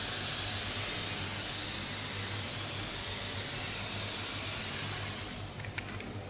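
An ink stroke drawn across paper: a long, steady, dry hiss that fades out about five and a half seconds in, followed by a few faint ticks.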